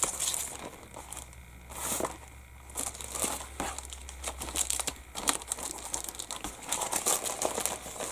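A sealed clear plastic bag crinkling in fits and starts as hands handle it, trying to get it open.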